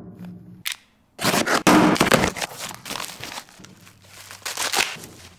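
Cardboard shipping box being opened and a part unwrapped from its white packing wrap: a loud rip about a second in, then crinkling and rustling of the wrap with a few sharp clicks.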